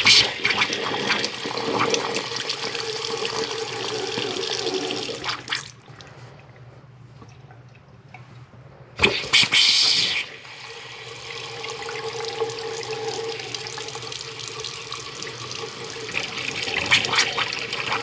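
Water running from a bathroom faucet spout into a sink basin. The flow drops low for a few seconds, comes back with a sudden loud rush about nine seconds in, then runs steadily and grows stronger near the end as the water pressure builds back up after the supply was turned back on.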